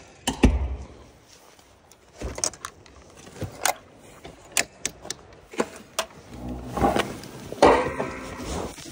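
Keys jangling and a run of sharp metal clicks and knocks as the latch on a truck bed camper's aluminium door is worked open, with a loud thud about half a second in.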